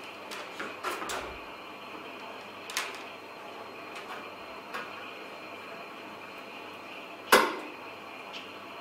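Light clicks and knocks of hand work, with one sharper knock about seven seconds in, over a faint steady hum. These are the sounds of an earth wire being fastened to a screw on the machine's side.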